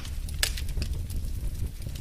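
Wood fire crackling: irregular sharp pops and snaps over a steady low rumble of the flames, with a louder pop at the start and another about half a second in.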